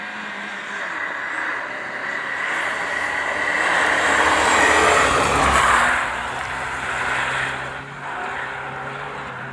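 Rally car passing at speed on a snowy road. The engine note and a hiss build as it approaches, are loudest about five seconds in, and fade as it drives away.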